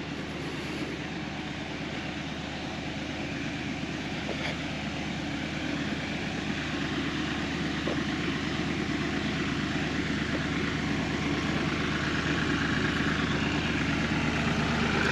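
Bobcat CT2040 compact tractor's diesel engine idling steadily, growing gradually louder as it is approached.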